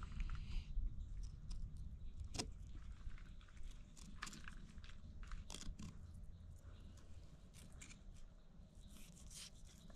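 Fillet knife slicing and scraping through a mangrove snapper's skin and scales on a cutting board: a run of short, irregular scrapes and clicks, the sharpest about two and a half seconds in, over a steady low rumble.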